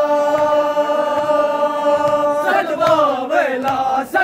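A male voice chanting a Muharram nauha (Shia mourning elegy): one long note held for a little over two seconds, then the next line begins, its pitch rising and falling. A sharp slap near the end, from mourners beating their chests.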